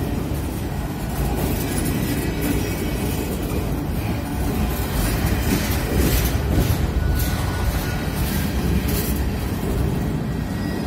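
CN freight train of covered grain hopper cars rolling past: a steady low rumble of steel wheels on rail, with several clacks from the wheels over the rail joints.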